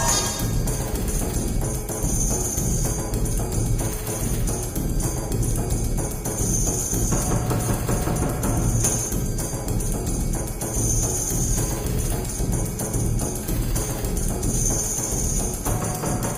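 Background music with percussion, a high shimmer recurring about every two seconds.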